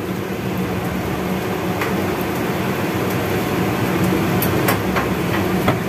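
Tiwul fried rice frying in oil in a pan on a gas stove, a steady sizzling hiss, with a few light clicks in the second half.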